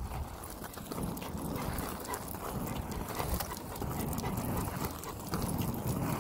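A Cane Corso panting on a walk, with footsteps on pavement.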